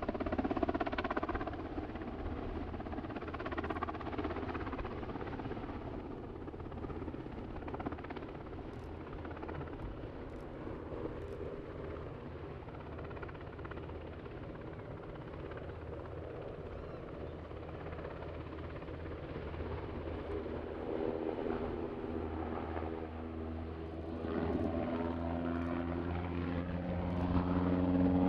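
NH90 twin-engine military helicopter flying overhead, its rotor and engine sound steady. The sound fades as it draws away in the middle, then grows louder again near the end as it comes back, with a hum of several steady tones.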